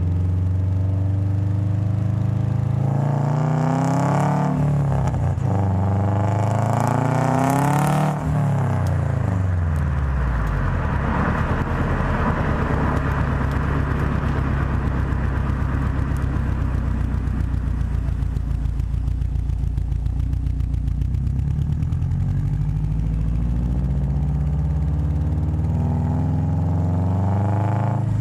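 Subaru WRX turbocharged flat-four engine and exhaust, its revs climbing and dropping twice in the first ten seconds, then running steadier at a lower pitch and climbing again near the end.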